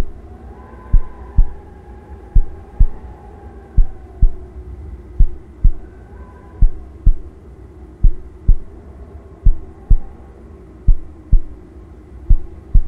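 Heartbeat sound effect: slow paired 'lub-dub' thumps, one pair about every second and a half, over a low steady hum with faint tones that slowly rise and fall.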